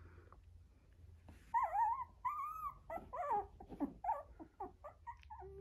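Young puppies whining. About a second and a half in come two drawn-out, arched whines, followed by a string of shorter falling whimpers, a few a second.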